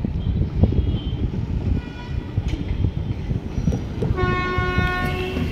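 Train horn sounding one steady note for about a second near the end, after a fainter short toot about two seconds in, with wind buffeting the microphone throughout.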